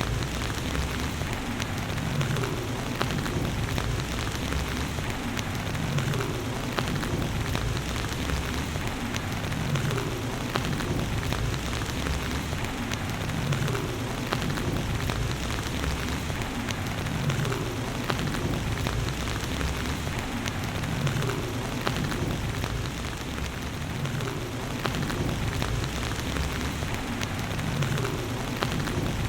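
Steady heavy rain, a dense even patter, over a low rumble that swells and fades about every two seconds.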